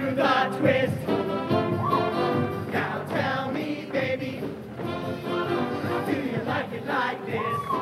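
Upbeat live band music with horns: an instrumental dance break with rhythmic hits.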